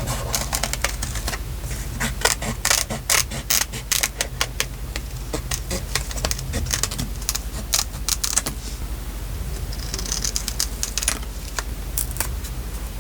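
Paper and craft pieces handled on a desk while decorating a journal: a run of light clicks and taps with paper rustling, and a brief rustle about ten seconds in, over a low steady hum.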